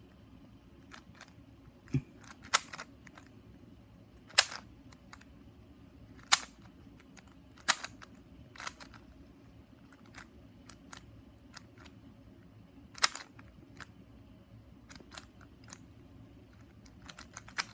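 Sharp plastic clicks and snaps from a 3x3 speed cube being handled and its layers turned, coming irregularly about every one to two seconds with fainter ticks in between.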